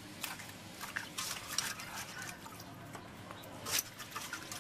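Hands swishing and rubbing lettuce and green onions in a metal basin of water: irregular small splashes and drips, with one louder splash about four seconds in.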